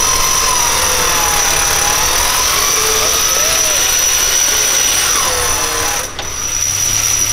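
Off-road 4x4's engine running low as it crawls over rocks, under a steady high-pitched insect whine from the forest, with some wavering pitched sounds coming and going.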